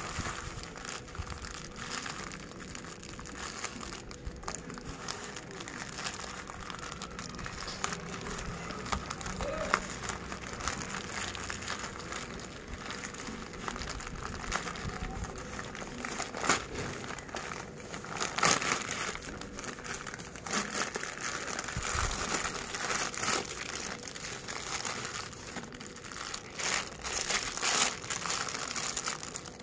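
A plastic courier mailer bag crinkling and rustling as it is handled and pulled open by hand, with irregular louder crackles. Near the end, the cellophane wrapper of a silicone mould crinkles.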